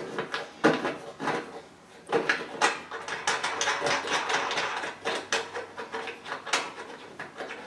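A wing nut being turned off a threaded stud by hand on an aluminium storm-shutter panel: irregular small metallic clicks and scrapes, thickest in the middle.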